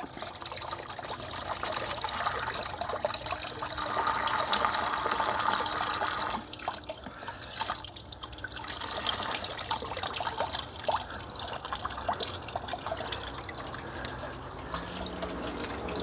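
Water trickling and splashing down a hand-carved wooden fountain into its basin, fed by a pump. It is a small, steady water sound that swells a little and eases off.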